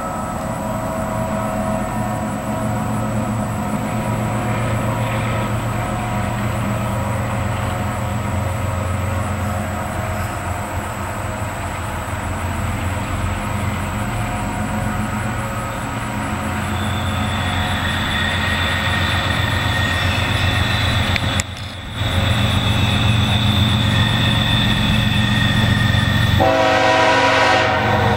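GE ES44AC diesel-electric locomotives working a coal train as they approach, a steady low engine drone growing louder, with a high whine joining about two-thirds through. Near the end the lead locomotive's air horn sounds a loud chord.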